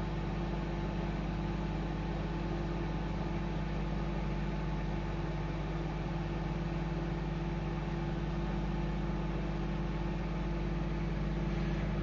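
Microwave oven running: a steady low hum with an even hiss over it.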